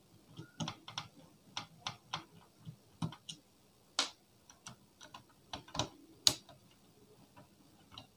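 Irregular small clicks and taps from hands handling the plastic and metal parts of an opened DVD player and its tools. The sharpest click comes a little past six seconds in.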